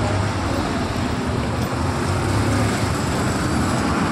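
Road traffic with a bus's diesel engine running steadily as the bus approaches and passes close by, over the general noise of cars and motorbikes.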